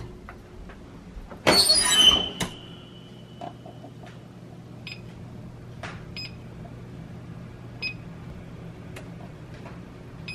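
A metal baking sheet is slid onto an oven rack and the oven shut with a clatter that rings briefly. Then the electronic keypad of a GE Profile wall oven beeps four times, a second or more apart, as the buttons are pressed to set a 30-minute cook time.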